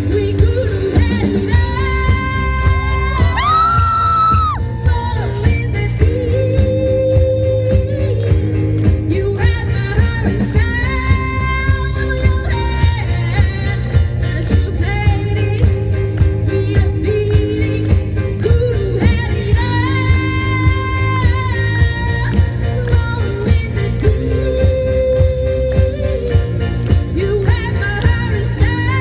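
A live rock band with a female lead singer, playing over a steady drum beat with bass and electric guitar.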